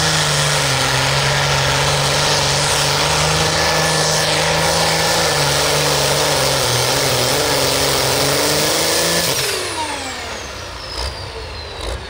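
Turbocharged International pulling tractor running flat out under load as it pulls the sled, the engine note steady and loud. About nine seconds in the throttle comes off and the engine winds down, with a falling whine.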